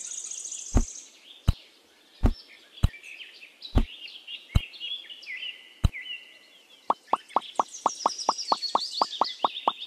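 Small pebbles being set down one at a time on sand, each a sharp click: seven spaced taps, then a quick even run of about four clicks a second near the end. Birds chirp throughout.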